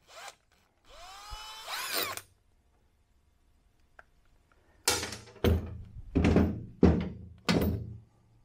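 Cordless drill motor whirring up briefly with a rising whine, driving off the nut that holds a grinding stone on a spindle. A few seconds later come five heavy knocks, evenly spaced about two-thirds of a second apart.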